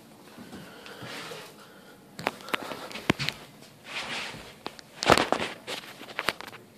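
A puppy moving about on a tiled floor: scuffling and rustling with a run of sharp clicks and knocks, the loudest a knock about five seconds in.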